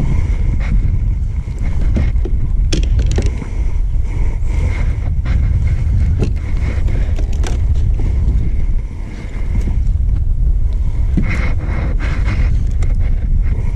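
Wind buffeting the camera microphone: a loud, steady low rumble, with scattered light clicks and knocks from handling gear on the kayak.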